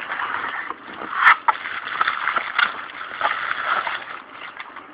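Packaging rustling and crinkling as a DSLR camera body is unwrapped from its box, with a sharp click about a second in.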